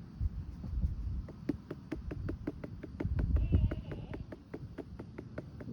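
A hand patting the back of a RealCare infant simulator doll to burp it: quick, even pats about five a second over low rumbling handling noise. The doll has not yet given its burp.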